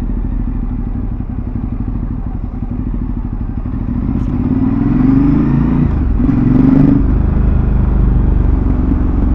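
Ducati Multistrada 950's L-twin engine running through a titanium Termignoni full-system exhaust, its engine speed rising about three and a half seconds in, dropping briefly near six seconds and rising again, then holding steady.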